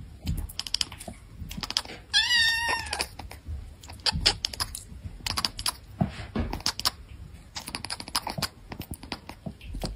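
A cat chattering: a rapid run of clicking jaw chatter with short chirps, and one longer wavering call about two seconds in.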